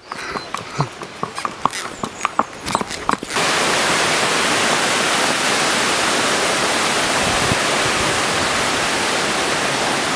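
Horse hooves clopping on a trail for about three seconds, then a loud, perfectly steady hiss like static that cuts in suddenly and runs for about seven seconds before cutting off, covering everything else.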